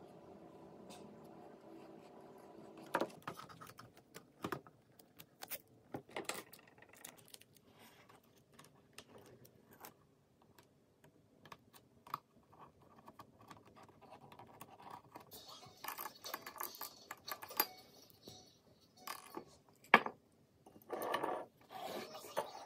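Close handling sounds of wooden popsicle craft sticks and paper on a wooden tabletop: scattered light taps and clicks, with a few longer, louder scuffs near the end and one sharp knock about twenty seconds in.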